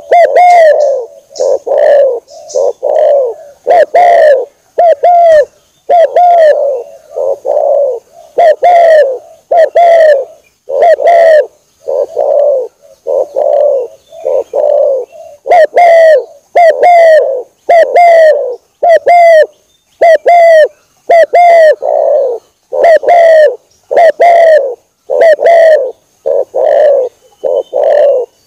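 Spotted dove (tekukur) cooing over and over, short arched coos repeated about one to two a second with brief pauses: a lure call recording used to draw in doves.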